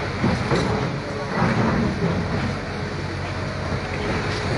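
Diesel engine of a SANY hydraulic excavator running steadily under load, with several bursts of concrete and debris crashing down as a wall is pulled apart.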